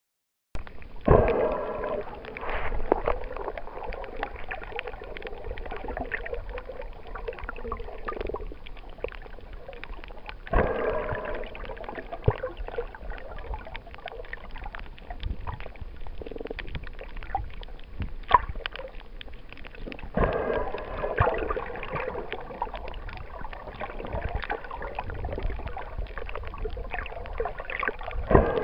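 Muffled underwater water noise picked up by a snorkeler's camera, a steady gurgling hiss that begins about half a second in, swelling louder for a second or two about every ten seconds.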